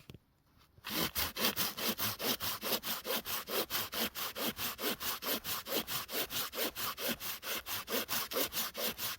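Hand saw cutting through a firewood log, starting about a second in with fast, even back-and-forth strokes, about five a second.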